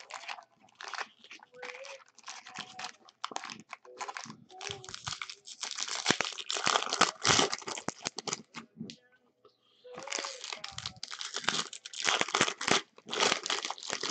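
Foil wrappers of Bowman baseball card jumbo packs crinkling and crackling as they are handled, then a pack being torn open by hand in irregular bursts of tearing and crumpling, with a short pause about nine seconds in.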